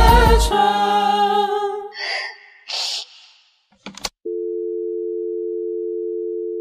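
The song's last notes ring out and fade, followed by two short hissing bursts. About four seconds in comes a sharp click, then a steady telephone dial tone of two close pitches that holds for about three seconds as the track's closing effect.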